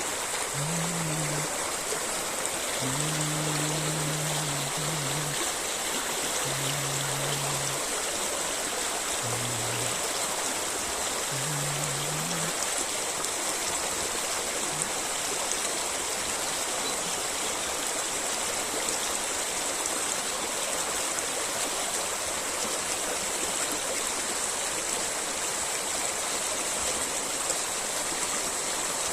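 Small river flowing steadily, an unbroken rushing hiss of running water. A few short low held tones sound over it in the first twelve seconds or so.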